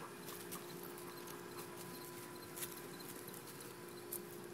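Doberman puppies' paws and claws pattering and clicking in scattered quick taps as they scamper about at play, two taps standing out louder. A steady low hum runs underneath.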